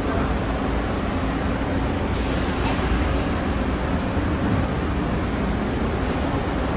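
New York City subway train running through the station with a steady, continuous rumble of wheels on rails. About two seconds in, a high hiss joins and holds.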